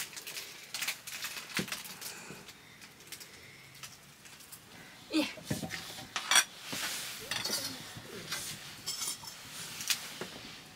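Cutlery clinking and knocking against dishes while people eat, in short, irregular clinks, with a faint voice now and then.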